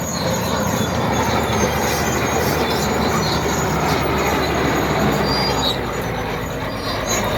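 Komatsu D80A crawler bulldozer at work: its six-cylinder non-turbo diesel running steadily while the steel crawler tracks squeal and clank.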